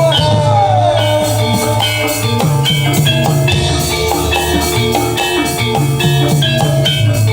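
Live gamelan accompaniment for a Reog dance: hand-drum strokes under ringing metallic gong-chime tones in a steady rhythm, with a high wavering melody line that fades about a second in.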